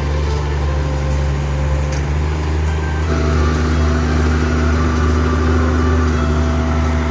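Kubota KALWEY KR220 two-row rice combine's diesel engine running steadily under load while the machine cuts rice as it crawls forward on its tracks.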